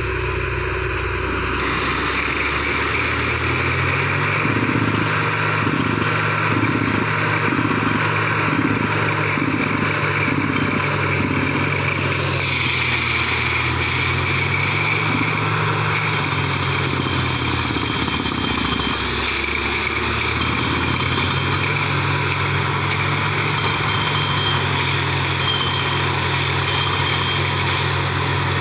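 Borewell drilling rig at work: a heavy engine runs steadily under load over a broad hiss of air and drilling noise. The engine note rises a few seconds in, sags for a couple of seconds past the middle and picks up again. Between about four and twelve seconds a rhythmic pulse comes a little faster than once a second.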